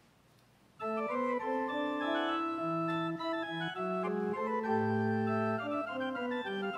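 Electronic keyboard played with an organ voice, starting suddenly about a second in after a brief near silence: sustained chords under a moving melody, the notes held steady without dying away.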